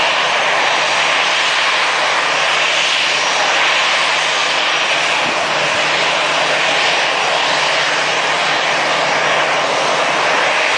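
Jet airliner's engines producing a loud, steady rushing noise as the plane approaches at low altitude.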